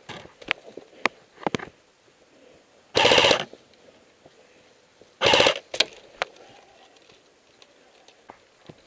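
Airsoft electric gun (AEG) firing two short full-auto bursts of about half a second each, the second about two seconds after the first, with scattered sharp clicks and knocks before and after.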